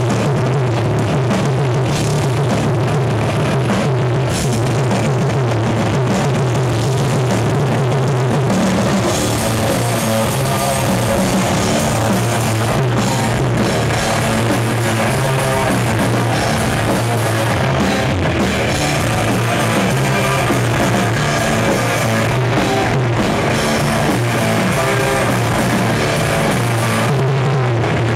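Metal band playing live at full volume: distorted electric guitars, bass and a drum kit, the sound growing brighter about nine seconds in.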